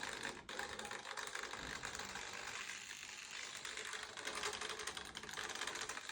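Small hobby servos chattering continuously with rapid fine clicks of their plastic gear trains as the autopilot flight controller drives the RC plane's control surfaces.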